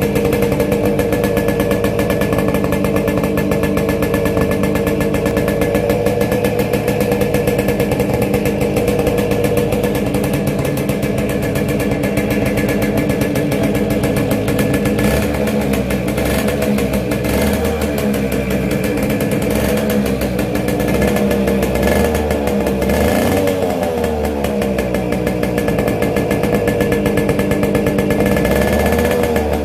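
Modified Yamaha RX100's 98 cc two-stroke single-cylinder engine running steadily. In the second half a deeper rumble comes in and the engine note wavers up and down.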